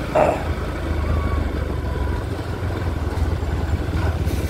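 Motorcycle engine running steadily with a low hum, just after a service. A brief louder, higher sound comes at the very start.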